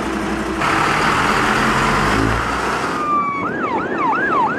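Fire engine running with a loud rushing noise, then about three seconds in its siren starts with a fast up-and-down yelp, about three sweeps a second.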